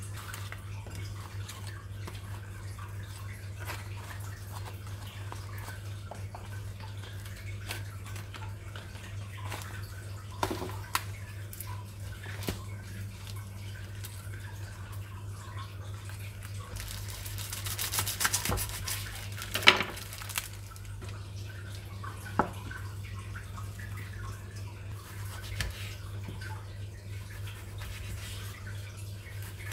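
Kitchen prep sounds: scattered clinks and knocks of utensils and dishes over a steady low hum, with a brief hissing rush about 17 seconds in and a sharp clink just after it.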